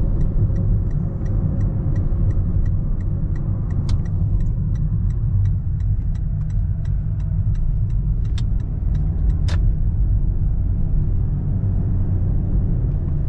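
Steady road and tyre rumble inside a 2017 Toyota Prius cabin while driving. Over it, a turn signal ticks evenly, about three clicks a second, and stops with a sharper click about nine and a half seconds in.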